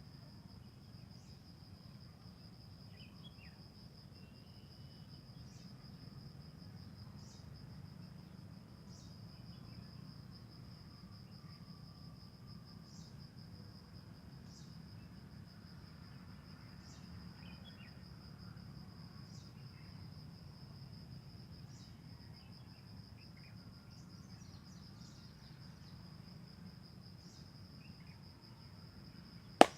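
A cricket trilling steadily on one high note, over a faint low background rumble with faint scattered rustles. One sharp slap or crack comes right at the end.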